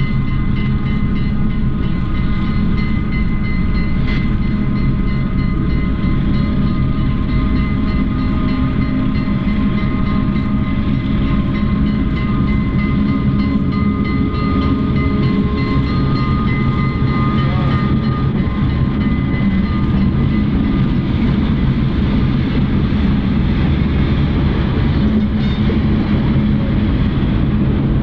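EMD E9 diesel streamliner locomotives pulling a passenger train past, a steady engine drone with train noise.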